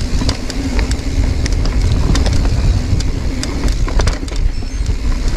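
Mountain bike descending a rough, rocky trail section: a steady low rumble of tyres and wind on the microphone, with frequent sharp clacks and rattles from the bike jolting over rock.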